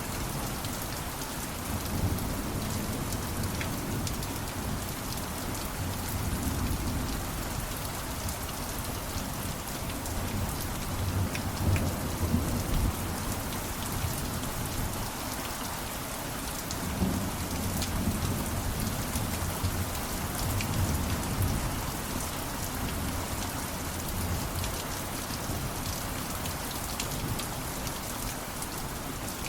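Steady rainfall, with low rumbles of distant thunder swelling and fading now and then, strongest around the middle.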